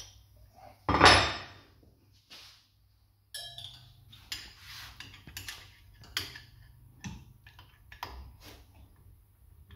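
Metal-on-metal work on a Steyr Puch engine: one loud metallic clank about a second in, then a string of irregular lighter clicks and knocks as the camshaft is turned by hand against the rocker arms to check whether they sit flat on the cam lobes.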